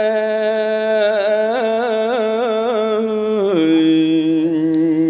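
Khmer smot chanting by a male Buddhist monk, solo: one long held note that breaks into a wavering ornament, then drops to a lower held note about three and a half seconds in.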